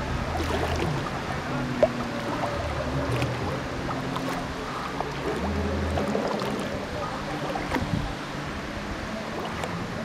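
Wake waves from a passing jet ski lapping and splashing against a fishing kayak's hull as it rocks on the water, with small scattered ticks.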